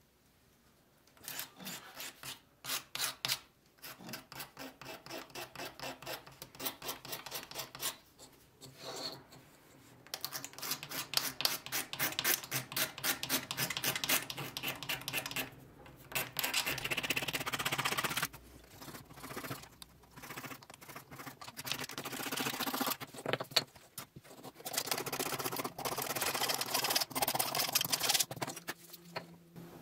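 Rapid back-and-forth rubbing and scraping by hand on the wooden body of an antique molding plane, cleaning off the old grimy surface. The strokes come quickly, in several bouts with short pauses between them.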